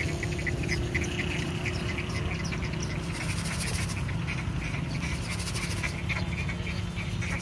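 Birds chirping, short high calls repeating several times a second, over a steady low rumble.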